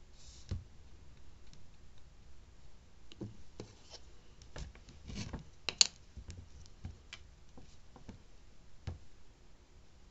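Nail-stamping work on a metal image plate: polish applied, the excess scraped off, and a rectangular stamper pressed on to pick up the design. It is heard as scattered light scrapes, taps and clicks, the loudest a sharp click a little before six seconds in.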